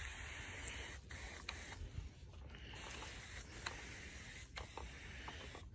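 Faint steady hiss of a hand-pump garden sprayer misting plants, with a few light clicks and rustles from handling.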